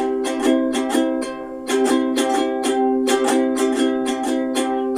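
Ukulele strummed in a quick, even rhythm of chords, with a short break about a second and a half in.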